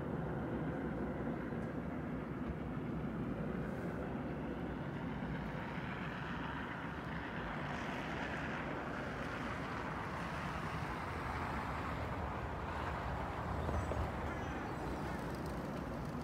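Road traffic: cars driving past on the road, their tyre and engine noise over a steady low rumble. One pass swells about halfway through and a louder one comes near the end.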